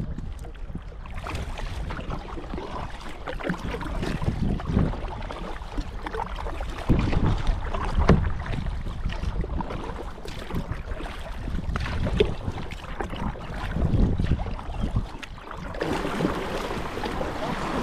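Water sloshing and splashing around a kayak as it moves along the river, with a low wind rumble on the microphone, rising and falling irregularly and loudest about seven and fourteen seconds in.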